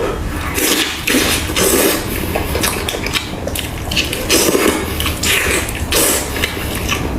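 Close-miked eating sounds: wet chewing and tearing of roast lamb-leg meat in quick, irregular bursts.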